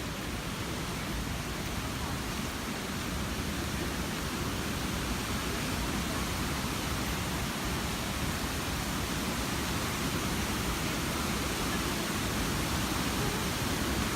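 Steady rush of falling water from a waterfall, a dense even hiss and rumble that grows a little louder near the end.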